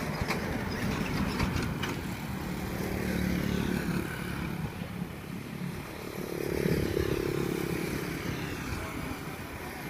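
Kubota tractor's diesel engine running steadily, mixed with motorbikes passing on the road, which swell louder about seven seconds in.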